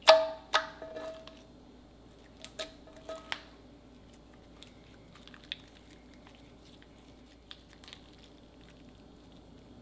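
Thick slime being kneaded and stretched by hand, giving sharp wet pops and clicks: a loud cluster in the first second, a few more around two and a half to three and a half seconds in, then fainter scattered crackles.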